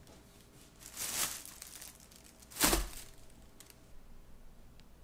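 Thin plastic carrier bag rustling in two short bursts, about a second in and louder near the three-second mark, with a soft thump on the table.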